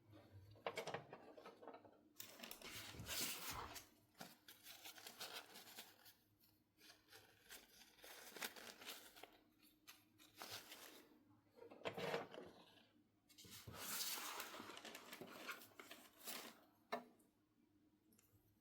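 Toy packaging being handled: quiet, irregular rustling and crinkling of plastic and paper, with a few sharp clicks.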